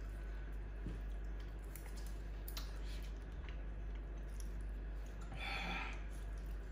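Quiet sounds of people eating at a table: faint clicks and chewing over a low steady hum, with a short brighter noise about five and a half seconds in.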